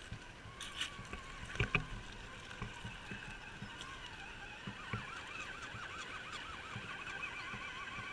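Electric drive motor and gearbox of an RC4WD Gelande II Defender scale crawler whining steadily as it drives over stones, the whine wobbling rapidly in pitch from about halfway. A few knocks sound, the loudest two close together about one and a half seconds in.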